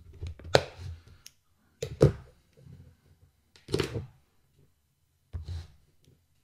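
Handling noise on a wooden desk: four separate knocks and clatters as a small plastic box is moved and a thermal paste syringe is picked up.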